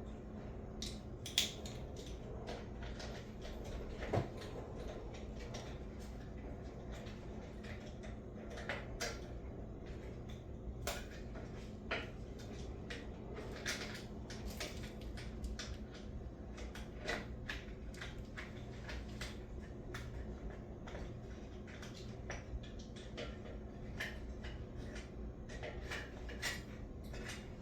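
Scattered light clinks, taps and knocks of small metal engine parts and hand tools being handled and fitted during reassembly of a Honda lawnmower engine's carburetor and linkage, over a steady low hum.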